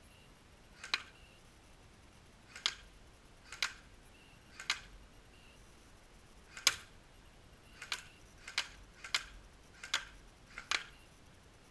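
Airsoft gun shots at a vinyl fence: about ten sharp cracks at irregular intervals, each with a fainter click just before it, coming faster in the last few seconds.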